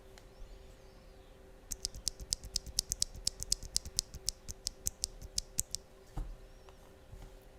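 Typing on a TOFU65 2.0 mechanical keyboard with Thic Thock Marshmallow linear switches, GMK Minimal R2 keycaps and a PP plate: a quick run of key strokes, about six to seven a second for some four seconds, starting about two seconds in. It ends with a single deeper stroke about six seconds in.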